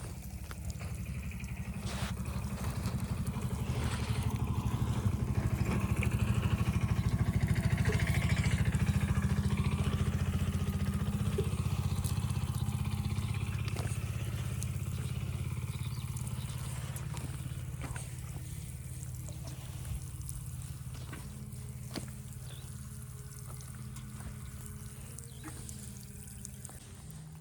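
A small engine running with a fast low putter, growing louder to a peak about eight seconds in, then slowly fading away.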